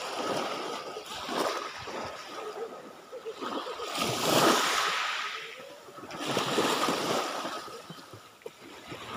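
Small waves washing up onto a sand and pebble beach and drawing back, swelling and fading in about three surges, the loudest about four seconds in.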